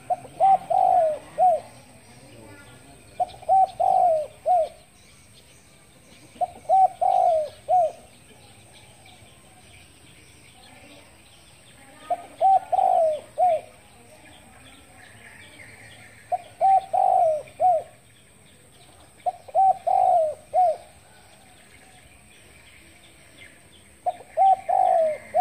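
Caged spotted dove cooing its short phrase of several notes, seven times with pauses of a few seconds between. Small birds chirp faintly behind it.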